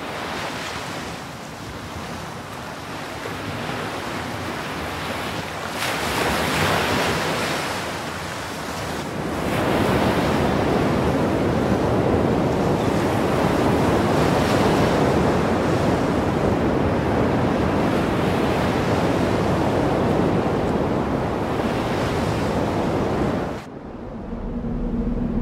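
Ocean surf with wind, a steady rushing that swells a little way in and stays strong, then drops away suddenly near the end.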